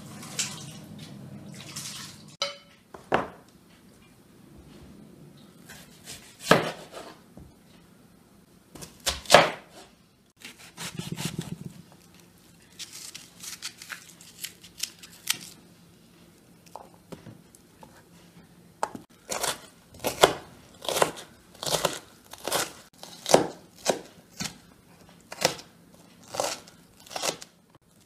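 Knife cutting onion on a wooden chopping board. Scattered single cuts come first, then a steady run of chops, a little over one a second, through the last nine seconds.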